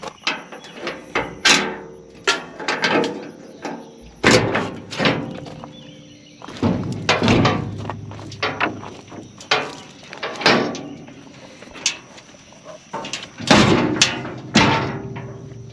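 A series of irregular knocks, bangs and clatters, about two dozen, some coming in quick clusters and a few ringing briefly, like hard objects being handled, struck and set down.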